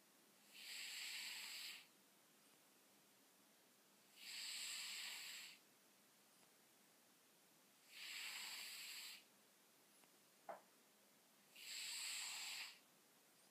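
A domestic cat snoring in its sleep: four breathy snores, each a little over a second long, coming about every four seconds. A brief click falls between the third and fourth snore.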